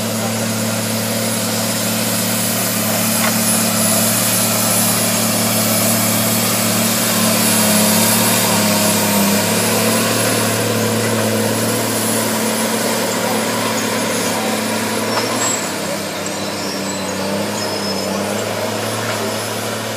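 A large engine running steadily at constant speed with a loud hiss over it, wavering slightly near the end.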